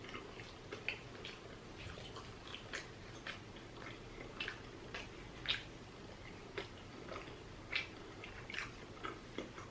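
Quiet room tone with faint, irregular clicks and taps, roughly two a second.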